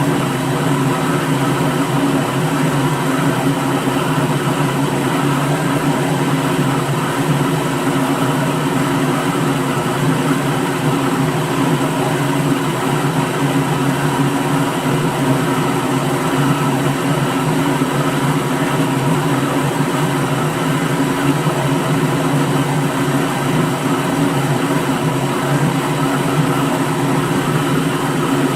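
Electric blender motor running steadily at constant speed, a continuous even whir with a low hum and a wide hiss above it, unchanging throughout.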